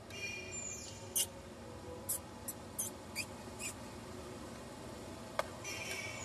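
Baby monkey squealing: a high-pitched falling squeal, then a run of about six short, sharp squeaks, and another squeal near the end.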